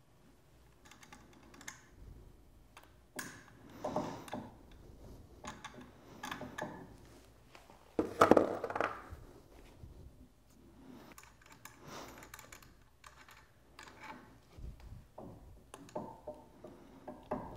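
Small metal hardware (nuts, washers and bolts) clicking and clinking as it is removed by hand from a mobility scooter's handlebar clamps. The clinks are scattered and light, with a louder clatter about eight seconds in.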